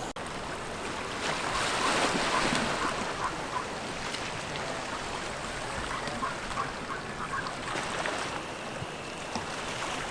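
Ocean waves washing on the shore, a steady rush that swells about one to three seconds in, with some wind on the microphone.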